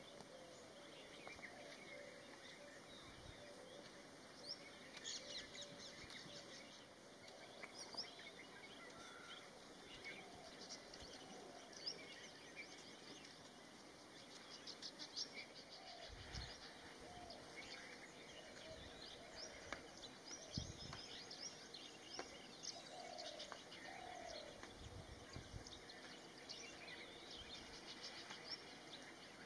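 Faint birdsong from several birds: many short chirps and whistles, with a few lower sliding calls. A few brief low thumps come near the middle and later.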